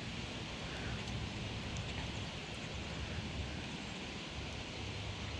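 Steady wind on the microphone over outdoor rustling, with a few faint ticks and no distinct events.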